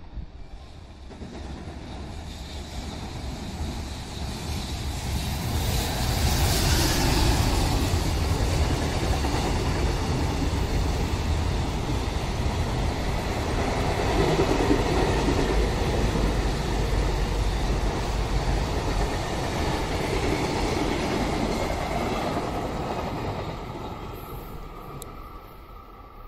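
A long JR container freight train running through the station without stopping. The rumble of wheels on rail builds over the first few seconds, holds steady as the container wagons pass, and fades away near the end.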